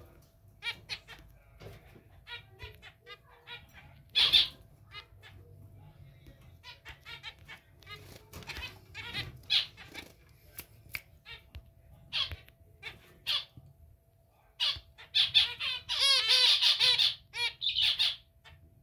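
Zebra finches calling: short repeated calls scattered throughout, with a louder, dense run of rapid notes near the end.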